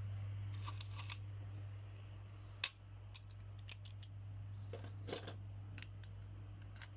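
Scattered sharp clicks and snips of plastic packaging being cut open and handled, the loudest a single click about two and a half seconds in and a cluster about five seconds in, over a steady low hum.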